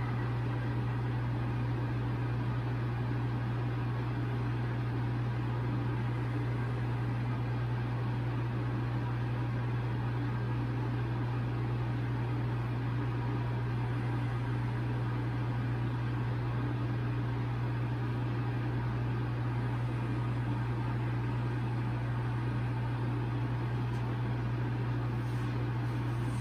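A steady low mechanical hum with an even hiss over it, unchanging throughout: the background noise of the room.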